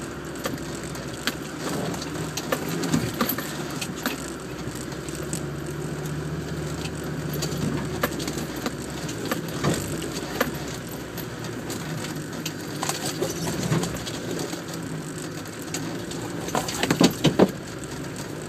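Land Rover Defender's engine running at low revs while crawling over rough, rutted ground, heard from inside the cabin, with scattered knocks and rattles from the body and suspension. Near the end comes a cluster of loud knocks and cracks as the vehicle pushes into bushes.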